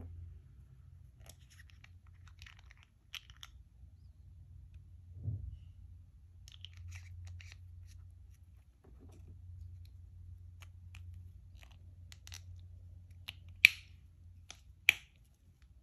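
Small plastic parts of a Poy-Sian nasal inhaler being handled and pried apart: scattered faint clicks and scrapes, a soft thump about five seconds in, and two sharp clicks near the end, over a steady low hum.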